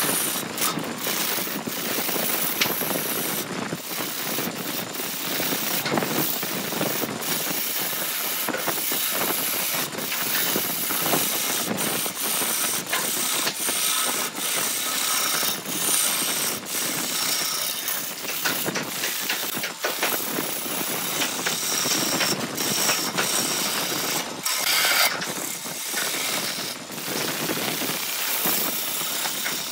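Lathe chisel cutting a spinning wood blank: a continuous rough shaving noise with many brief breaks.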